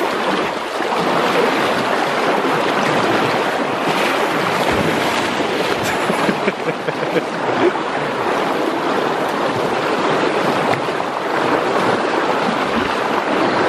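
Fast-flowing creek rushing past in a steady, loud hiss of turbulent water.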